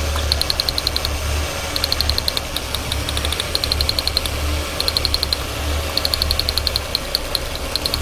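Ford Taurus 3.0L V6 idling while an incandescent test light is held against an ignition coil tower. The spark snaps to the probe in bursts of quick ticks, about eleven a second, and the idle rises and falls as that cylinder is dropped out. The spark is good and the cylinder is contributing.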